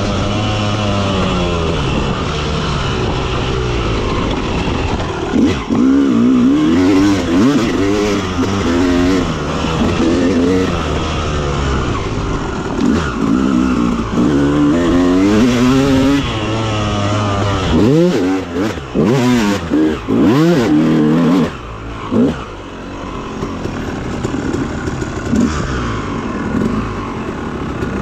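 Dirt bike engine revving up and rolling off over and over as it is ridden along a trail. About two-thirds of the way through come several short throttle blips with gaps between them, then the engine settles to a lower, steadier run.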